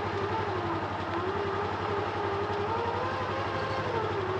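Polaris Ranger XP1000 side-by-side creeping slowly in reverse under load: a low, steady engine hum with a whine over it that wavers up and down in pitch as its speed changes.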